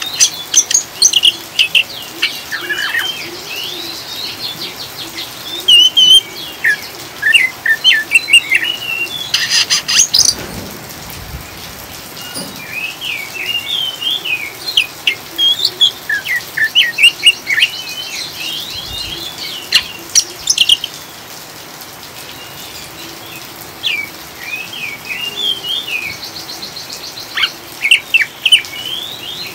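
Oriental magpie-robin (kacer) giving rapid, chattering 'ngriwik' chirps and short whistles over a steady hiss of rain. About a third of the way in there is one brief, harsher, buzzy rasp.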